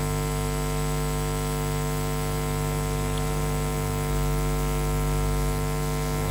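Steady electrical mains hum with a buzz of many overtones and a hiss above it, unbroken.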